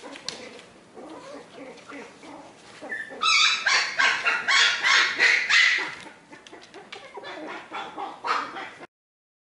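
Australian Terrier yipping and barking: about three seconds of rapid, high-pitched yips, followed by quieter scattered yips. The sound cuts off abruptly near the end.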